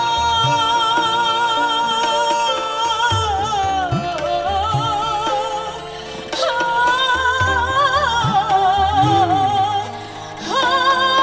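A woman's voice singing a slow Indonesian ballad, with long held notes that waver in vibrato, over band accompaniment. There are two long phrases, with a short break about six seconds in.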